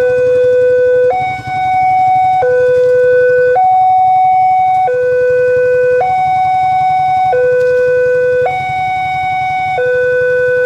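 Railway level-crossing warning alarm sounding: an electronic two-tone signal alternating between a lower and a higher tone about every 1.2 seconds, which warns that a train is approaching and the crossing is closing. A steady low rumble runs beneath it.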